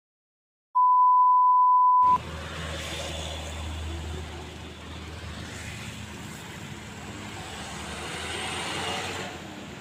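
A steady, pure beep tone lasting just over a second, then street noise: a low, steady engine rumble from a diesel truck, with traffic sounds.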